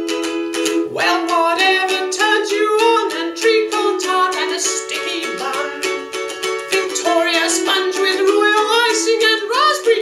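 Ukulele strummed steadily, with a voice singing along from about a second in.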